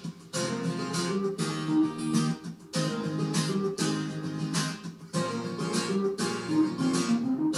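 Acoustic guitar music with strummed chords, played from the TV through an ALBA SR-30 soundbar and picked up in the room.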